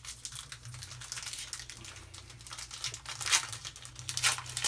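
Foil wrapper of a Panini Fortnite trading-card pack crinkling as it is handled and opened. There are irregular crackles, the sharpest about three seconds in and near the end.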